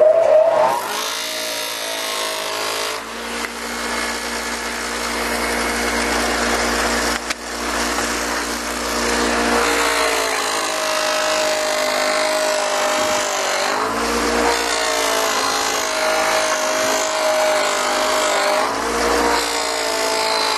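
Bench grinder motor spinning up with a rising whine, then running steadily with a buffer wheel as a pipe is pushed against it, with a steady hiss. The hum dips in pitch briefly several times, about 3, 10, 14 and 19 seconds in, as the load on the wheel changes.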